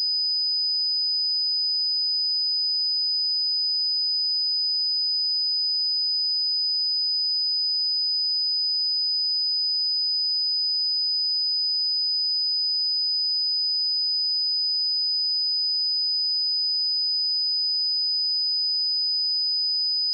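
A single steady 4991 Hz sine-wave test tone, a constant high-pitched pure tone at an even level, for checking speakers or headphones.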